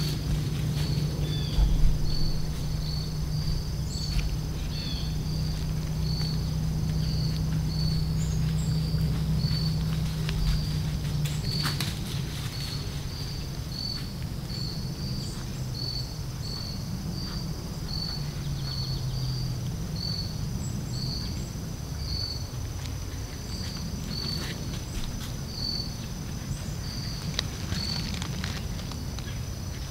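Insect chirping in an even rhythm, short high chirps about one and a half a second. A low hum runs under it for the first twelve seconds, and a few sharp clicks stand out, the loudest about two seconds in.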